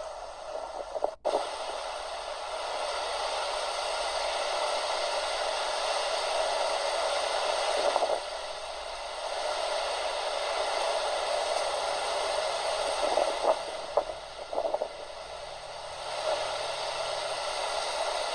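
Heavy rain falling and running, a steady hiss with a brief break about a second in.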